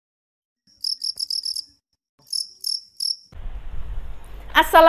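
Cricket chirping, used as a sound effect over dead silence: two short runs of quick, high chirps. Near the end, room tone comes in and a woman starts to speak.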